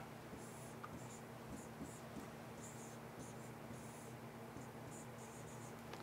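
Faint scratching of a stylus drawing on a pen tablet, in many short, irregular strokes, over a steady low hum.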